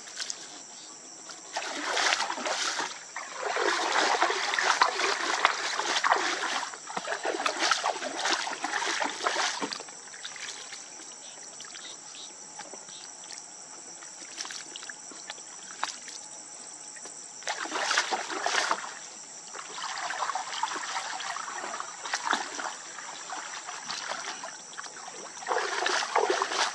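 Water splashing and sloshing as a bamboo basket full of small fish is dunked and swished in canal water to rinse the catch, in several bouts of a few seconds with quieter stretches between.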